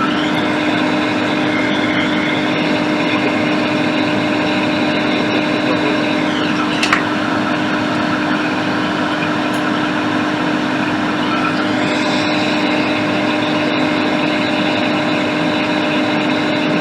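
Steady blowing hiss of an electric fan or blower with a constant low hum. Its high whine drops in pitch about six seconds in and rises back about twelve seconds in. One brief click about seven seconds in.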